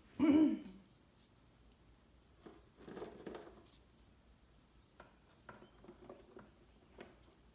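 A short voiced sound about half a second in, then scattered light taps and scratches: a cockatoo's claws on a concrete floor and its beak poking at a plastic step stool.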